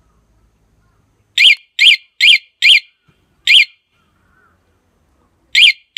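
Aftermarket motorcycle alarm's siren chirping in counted groups as it steps through its sensitivity levels while the remote's button is held: four quick chirps, then a single chirp, then two chirps near the end. Each chirp is short and loud, sweeping up and down in pitch.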